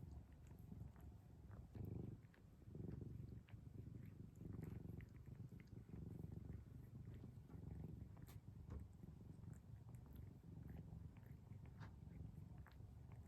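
A kitten purring faintly: a low rumble that swells and eases with each breath, with a few small clicks over it.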